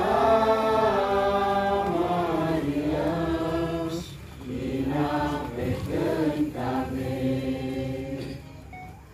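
A group of people singing together in long held notes, with a short break about four seconds in before the singing resumes, then fading near the end.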